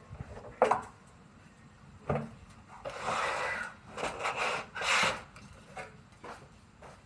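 Scraping and rubbing of parts being worked on, with a few sharp clicks and knocks: handling during the dismantling of a front-loading washing machine.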